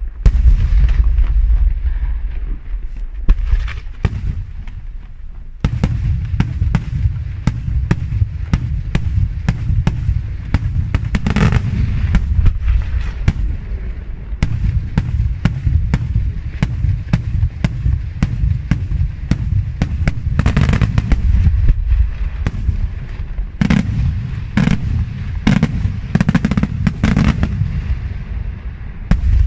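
Daytime fireworks going off in rapid, continuous volleys: a dense run of sharp bangs and crackling reports from bursting shells and firecrackers over a heavy low booming. The barrage eases briefly about five seconds in, then comes back denser.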